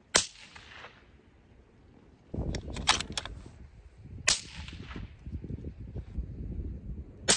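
Three suppressed bolt-action rifle shots, about three to four seconds apart, the last just at the end; each sharp report dies away in under a second. Between the first two, a quick series of metallic clicks as the bolt is worked, over a low rumble that begins about two seconds in.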